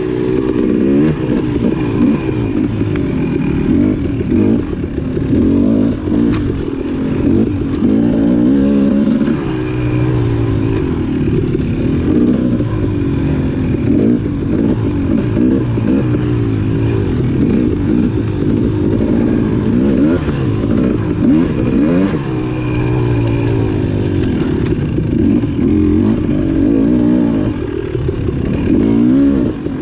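Dirt bike engine racing through a hare scramble course, its pitch rising and falling every second or so as the throttle is worked on and off.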